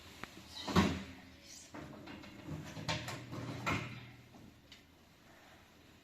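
Three sharp knocks or bumps, the loudest about a second in and two more close together around three seconds, with a low scraping between them, like something being handled or shifted.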